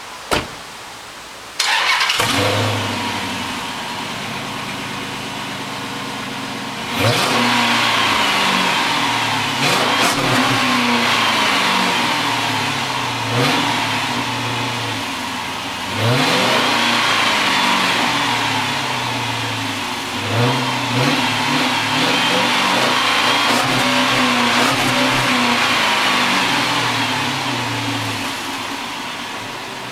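2007 Dodge Charger R/T's 5.7-litre HEMI V8 through its stock exhaust, starting about a second and a half in and settling to idle. It is then revved about six times, each rev falling back slowly toward idle.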